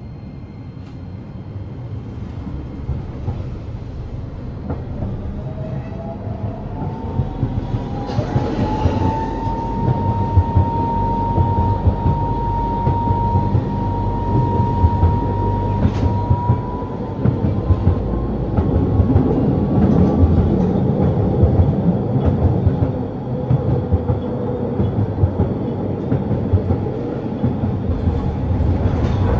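A Nagasaki Electric Tramway 3000-series tram with a Toyo Denki IGBT-VVVF inverter, heard from inside the cabin as it gathers speed. The inverter and traction-motor whine rises in pitch over a few seconds, then holds at one steady note, over the rumble and clatter of steel wheels on the rails. A single sharp click comes about halfway through.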